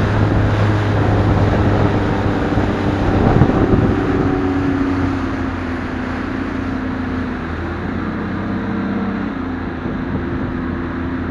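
Bass boat's outboard motor running at speed, with wind and water rushing past. The engine note and level ease off a little about halfway through.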